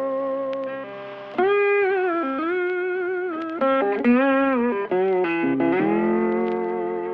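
Background music: an electric guitar plays held notes that bend and slide between pitches.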